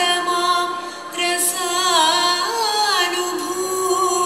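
A woman singing a slow, ornamented Carnatic-style melody, holding long notes that waver and bend in pitch, with a short break about a second in; a faint steady drone sits beneath the voice.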